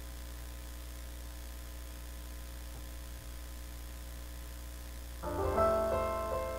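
A steady low electrical hum, then about five seconds in a Yamaha P125 digital piano begins to play, a few notes and chords.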